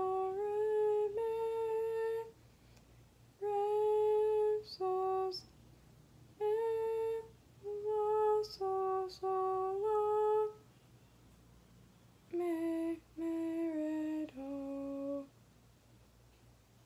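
A woman's unaccompanied voice sight-singing a melody on solfège syllables: single held notes, one after another, in short phrases with pauses between them. The last phrase steps down to its lowest note, which ends about fifteen seconds in.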